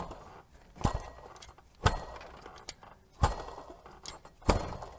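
Water pump pulley on a Renault Duster H4M engine, belt off, spun by hand about five times: each spin starts with a sharp click and runs down in a short rough rustle. The pump bearing runs rough and is worn.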